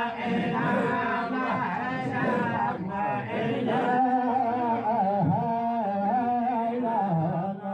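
Men chanting a devotional song together, the sung melody rising and falling over a steady low held note.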